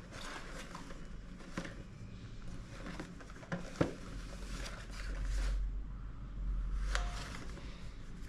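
Handling noise from a product package being turned over in the hands: scattered light taps and clicks with soft rustling, and a low rumble in the middle.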